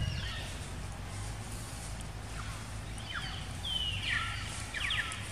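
Short, high-pitched animal calls, several quick descending chirps and squeals, over a steady low outdoor rumble.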